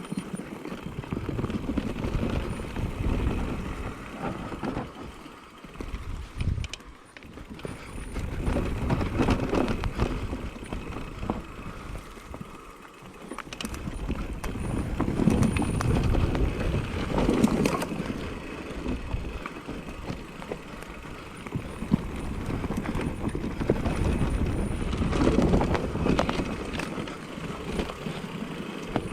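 Specialized Turbo Levo full-suspension electric mountain bike ridden downhill on a rough trail: tyres rolling and skidding over dirt and rocks, with repeated rattles and knocks from the chain and suspension. The noise swells and dips with the terrain.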